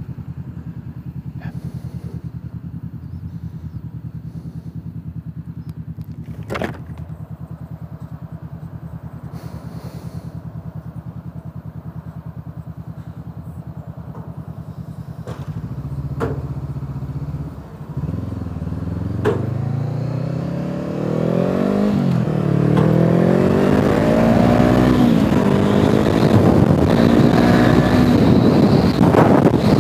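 Motorcycle engine idling steadily for about half the time, then revving and pulling away, its pitch rising and dropping back several times as it accelerates up through the gears, with wind noise building up.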